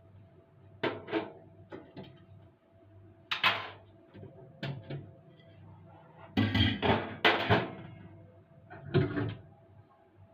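A series of separate knocks and clunks, as of hard parts being handled and set down while cleaning a kitchen ventilation fan, with the busiest cluster of clatter a little past halfway.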